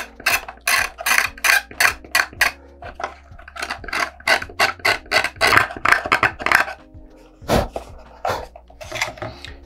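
Chisel-tip X-Acto hobby knife scraping in quick, repeated short strokes to smooth rough glue residue on a model rocket's body tube, with one dull knock near the end.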